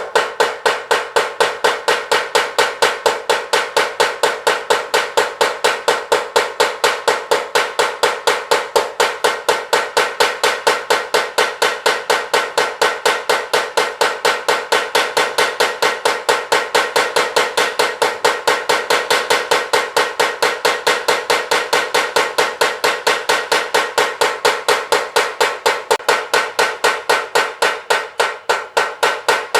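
Mechanical blacksmith's power hammer pounding steel in a steady fast rhythm of about four to five ringing metal blows a second, as it draws out a sickle blade. The blows weaken slightly near the end.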